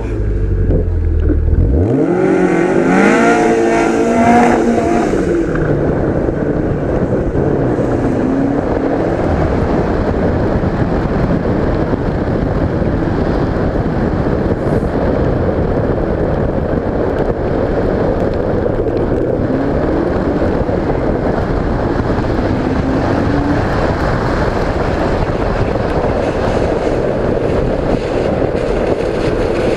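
Duratec-engined Westfield revving hard and climbing in pitch about two seconds in. After that a steady, loud rush of noise buries the engine, which rises briefly again a few times underneath.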